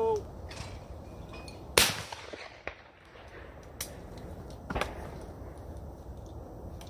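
A shotgun shot cracks about two seconds in, followed by a few fainter distant shots. A brief tone sounds right at the start.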